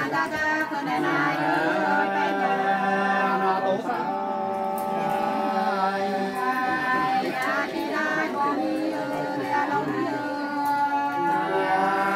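Women singing sli, the unaccompanied Nùng folk song, in long held notes that slide up and down, with a short break about four seconds in.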